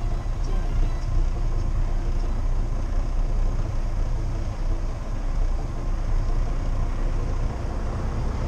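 Heavy truck's diesel engine and cab noise heard from inside the cab while driving slowly on a dirt track: a steady low rumble.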